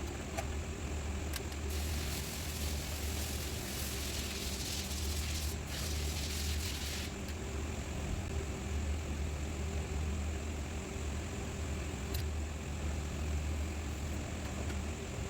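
A car engine idling steadily with a low, even hum. A hiss runs for about five seconds, starting about two seconds in.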